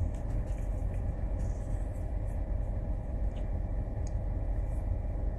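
Steady low rumble of a car's engine and road noise heard from inside the cabin, with a few faint ticks.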